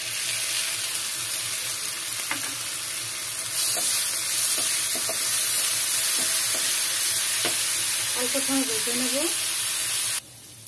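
Onions, bay leaves and green chillies sizzling in hot oil in a nonstick kadai while a wooden spatula stirs and scrapes the pan. The sizzle gets louder about three and a half seconds in and cuts off abruptly near the end.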